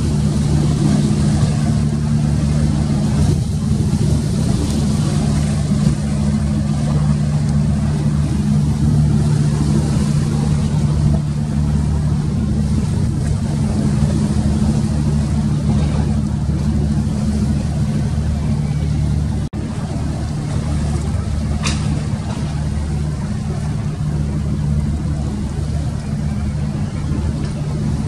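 An engine running steadily at constant speed, a low even drone with noise over it. It breaks off for an instant about two-thirds of the way through, with a short click soon after.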